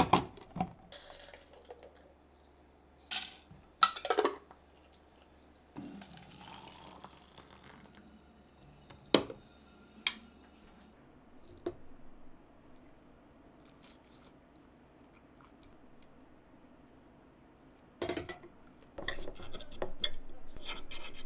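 Glass and tableware handling: a glass tea maker knocks and clinks as it is set down on a countertop, with separate light clinks through the middle. Near the end a knife and fork scrape and clatter against a ceramic plate while toast is being cut.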